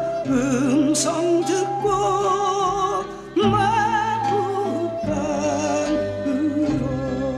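Music: a classically trained voice singing held notes with wide vibrato over instrumental accompaniment.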